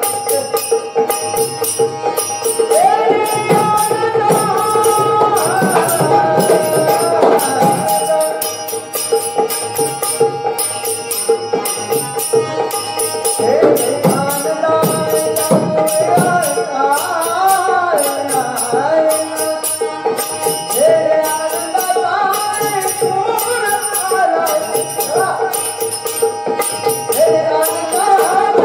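Marathi gavlan devotional folk song: a voice singing a winding melody over a steady drone, with fast, even percussion strikes keeping the rhythm.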